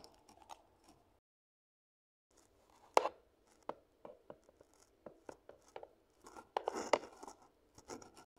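Handling noise: irregular clicks, taps and short scraping rustles, with one sharp click about 3 s in and a busy cluster of scraping clicks near the end. The sound drops out to dead silence for about a second near the start.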